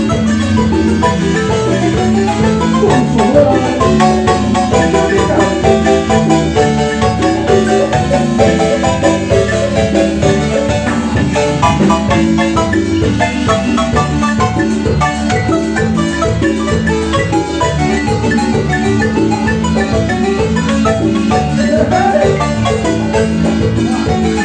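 Marimba music: quick mallet-struck notes over a steady bass line, played at a lively dance tempo.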